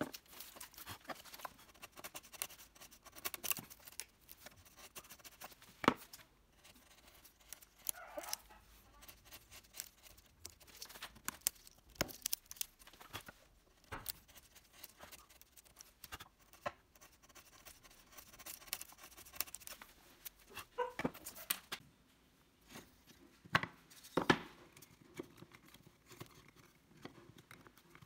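Hand work on small wooden pieces: irregular sharp clicks and knocks with short scraping and rubbing sounds, a few taps louder than the rest.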